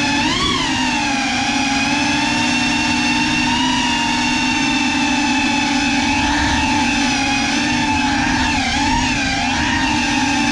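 FPV quadcopter's brushless motors and propellers whining in flight: a steady, loud multi-tone buzz whose pitch swells briefly about half a second in and wavers up and down near the end as the throttle changes.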